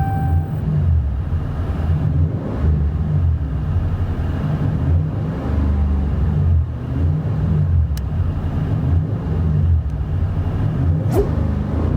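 Dodge Ram pickup's Flowmaster true dual exhaust running with a steady deep rumble that swells and eases slightly.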